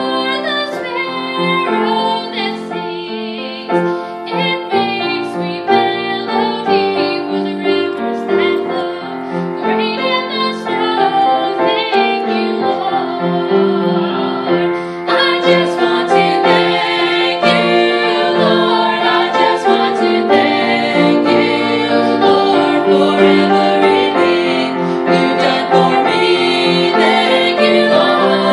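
A vocal trio of young singers, two women and a man, singing a gospel song into microphones with piano accompaniment. The singing grows louder and fuller about halfway through.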